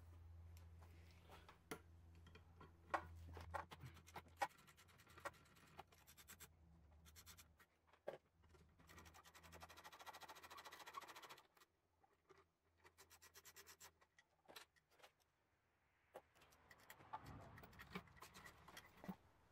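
Faint scattered clicks, taps and scraping of hands and tools working on hoses and fittings in a car's engine bay, with the engine off. A low hum sits under the first few seconds, and a longer stretch of scraping comes about halfway through.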